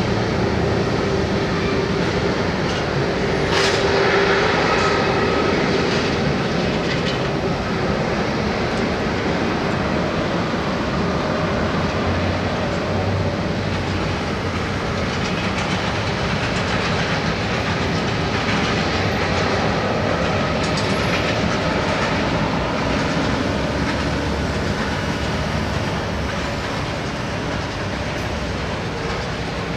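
Taxiing Airbus A330-300's Rolls-Royce Trent 700 turbofans running at low thrust: a steady jet rumble and whine with a few light knocks, easing slightly near the end as the aircraft passes.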